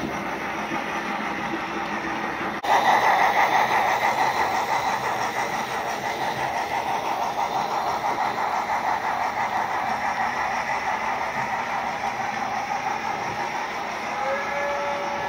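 Märklin H0 model train, a steam locomotive with its sound decoder pulling coaches, running along the track with a steady rolling and running noise that becomes louder about two and a half seconds in. Near the end a steady tone joins it.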